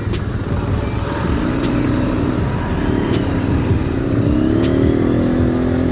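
Motor traffic heard from a moving motorcycle: a steady low rumble with an engine note that comes in about a second and a half in and rises in pitch as it speeds up.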